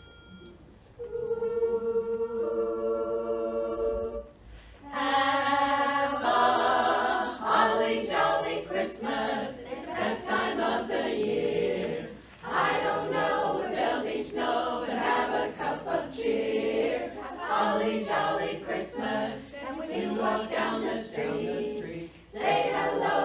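Women's barbershop chorus singing a cappella in close harmony. A short held note or chord is heard from about a second in, and the full singing begins about five seconds in.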